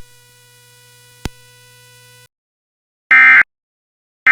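Faint hum with one sharp click about a second in, then a short silence and the Emergency Alert System end-of-message code: short digital data bursts (SAME code tones near 1.5–2 kHz) about a second apart, the first at about three seconds and the second just starting at the end. They signal the end of the alert.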